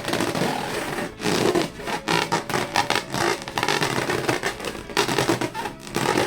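Hands rubbing and squeezing rubber balloons: a dense, irregular run of rubbing and scraping strokes with short breaks.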